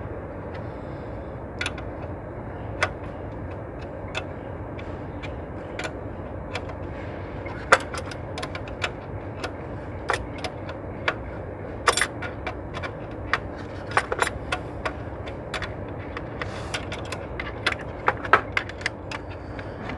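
Scattered metallic clicks and clinks of hand tools and engine-bay parts being handled while the cylinder-one fuel injector is dismantled, over a steady background hum.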